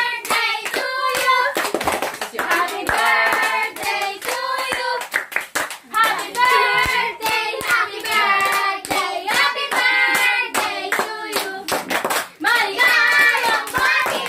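A group of adults and children singing together, clapping their hands along in time.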